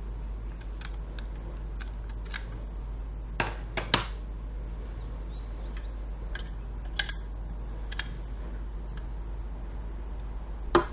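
Small clicks and taps of a laptop hard-drive caddy and its plastic rail being handled, with a louder pair of knocks a little before the middle and a sharp one near the end, over a steady low hum.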